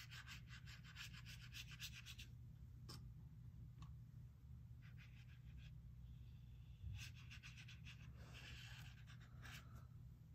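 Faint strokes of a watercolor brush on paper: runs of quick scratchy dabs with short pauses between them, over a low steady hum.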